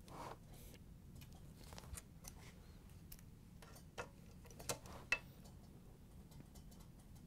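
Ratchet wrench with a Phillips driver bit tightening screws: faint, scattered ratchet clicks, with a few sharper clicks about four to five seconds in.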